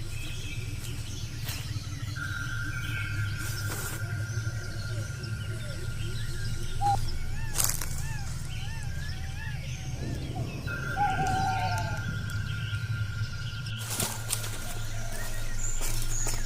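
Forest ambience: birds calling in short wavering notes over a steady low rumble, with a long, steady, high whistling tone that stops and starts again, and a few sharp snaps.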